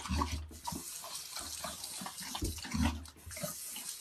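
Tap running into a bathroom sink while a dog laps and slurps at the stream, many short, irregular wet lapping sounds over the steady run of water.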